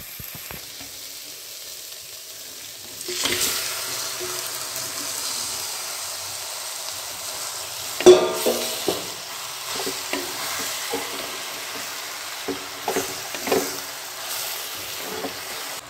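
Onion-tomato masala and chicken pieces frying and sizzling in an earthen clay pot while being stirred with a wooden spatula. The sizzle grows louder about three seconds in. The spatula knocks and scrapes against the pot about eight seconds in and a few times near the end.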